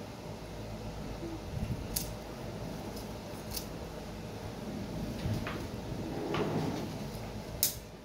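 Raw broiler chicken being cut by hand on a bonti, a floor-mounted curved blade: quiet slicing and handling of the meat with a few sharp clicks, the loudest near the end.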